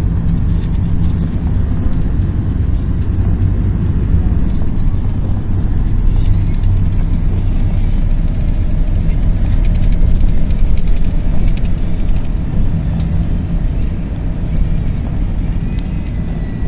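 Steady engine and road rumble heard inside the cabin of a moving coach bus.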